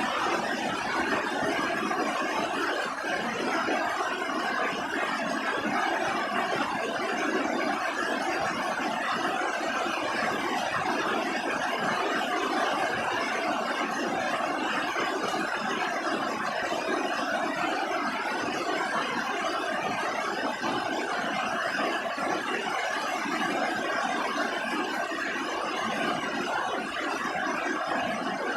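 Steady rain falling on a roof: a dense, even spatter of drops at a constant level throughout.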